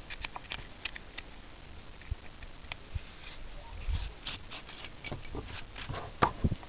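Scattered light clicks, taps and small scrapes of a small metal optical mirror mount being handled, coming thicker in the second half.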